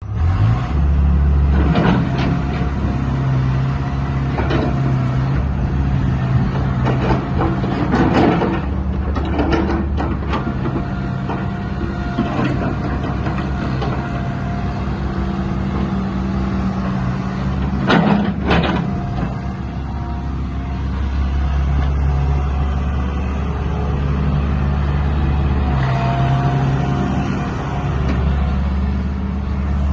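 Hitachi EX120-3 excavator's diesel engine running steadily, with several sharp knocks: a cluster about 8 to 10 seconds in and a pair near 18 seconds.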